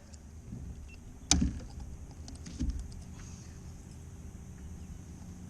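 A sharp knock on a fishing boat about a second in, then a softer knock a little over a second later, over a steady low rumble.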